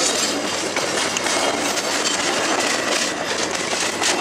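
Passenger train coaches rolling past on curving track, wheels clattering rapidly over the rails, with a faint steady high squeal underneath.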